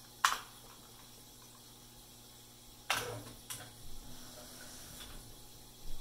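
IBM Wheelwriter 5 electronic typewriter's mechanism: a sharp clack just after the start, then about three seconds in a louder clack followed by a brief motor whir and a few lighter clicks as the paper is fed up several lines and the carrier moves.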